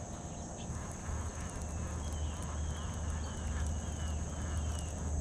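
Baitcasting reel being cranked to retrieve a crankbait, a steady low whir that starts about a second in. Over it, a bird calls a run of short, high, falling notes, about two a second.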